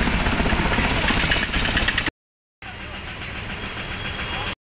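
Large helicopter flying low overhead, a steady loud rotor and engine noise that cuts off abruptly about two seconds in. After a short silence comes quieter, steady street noise.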